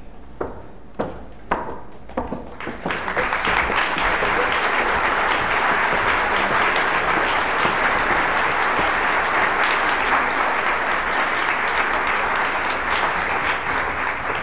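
Audience applauding: a few scattered claps at first, building into full, steady applause after about three seconds, beginning to die down near the end.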